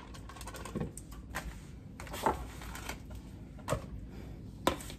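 About five light, sharp taps and clicks from a utensil and paper plate being handled over a plastic mixing bowl as softened butter is scraped in.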